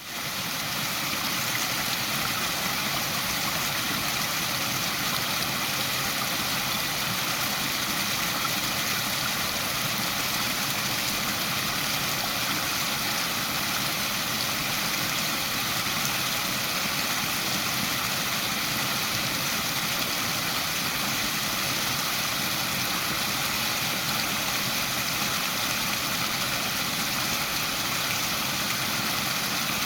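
Waterfall: a steady rush of falling water that fades in over the first second, then holds level.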